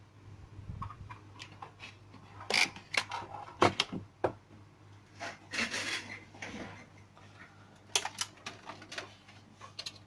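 Handling noise of a small plastic KVM switch box and its VGA cable: irregular clicks and knocks as the connector is plugged in and the box is moved, with a brief rustle of cables in the middle. A faint low hum runs underneath.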